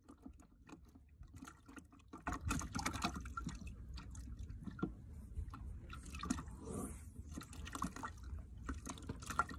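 Wet squelching, dripping and splashing of chum being handled and tossed by hand, with small pieces dropping into the water. It starts faint and turns louder and busier after about two seconds.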